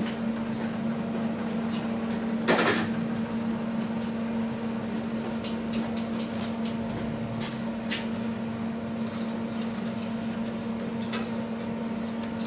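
A steady electrical hum, with one loud knock about two and a half seconds in, then scattered light clicks and knocks as tools and items are handled.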